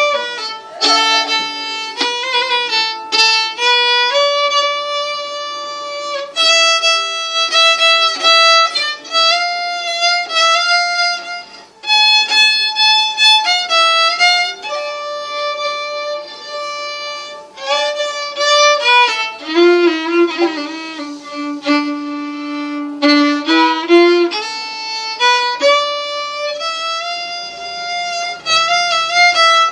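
Unaccompanied violin played with a bow: one melody line of held and moving notes, going lower for a few seconds about two-thirds of the way through.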